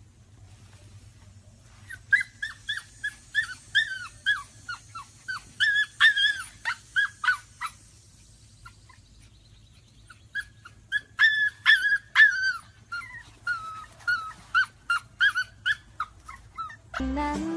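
Siberian husky puppy whimpering in short, high-pitched yelps, about two or three a second, in two runs of several seconds with a short pause between. Music starts right at the end.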